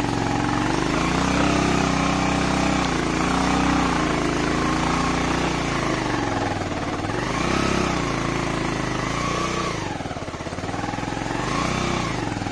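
Motorcycle engine running under load as the bike climbs a steep, stony cobbled track, its revs rising and falling over and over, with a brief drop about ten seconds in.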